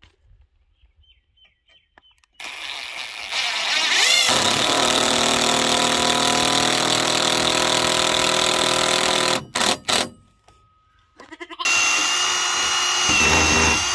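AEG cordless drill driving a screw into hardwood. The motor runs steadily under load for about seven seconds, stops, then runs again for about two seconds near the end.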